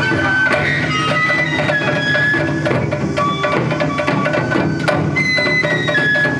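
Japanese taiko ensemble drumming: large drums on stands and hand-held drums struck in a fast, dense rhythm, with a high melody of long held notes sounding above it.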